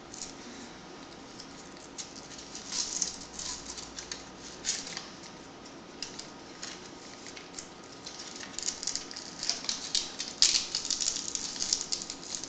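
A fabric strap and the cot's mesh base rustling and scratching under hands as the strap is threaded and fastened around a small vibration unit. The noises come as scattered short scratches, busier in the last few seconds.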